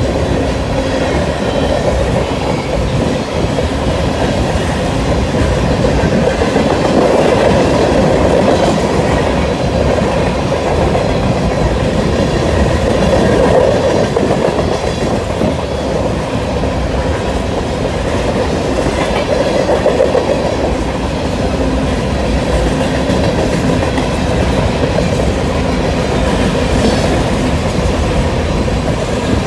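Freight train of covered hopper cars rolling steadily past: the continuous noise of steel wheels running on the rails, with clicking over the rail joints.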